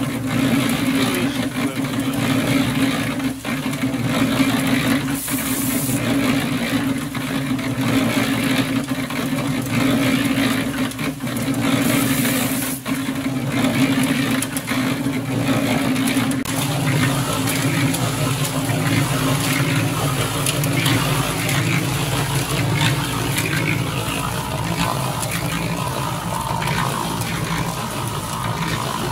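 Portable cement mixer running, its motor humming steadily while the turning drum tumbles a batch of wet bagged concrete. The hum shifts lower a little past halfway.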